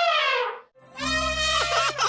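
Elephant trumpeting: a loud brassy call that drops in pitch and breaks off about two-thirds of a second in, then after a short pause a second long trumpet starts, over a low rumble.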